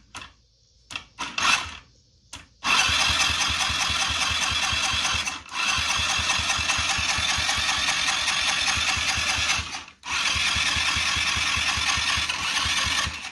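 A few clicks, then a GY6 four-stroke scooter engine being cranked by its electric starter in three long bursts with short breaks between them. It never catches. It is pushing compression back out the intake, which is put down to a tight valve holding the valve open.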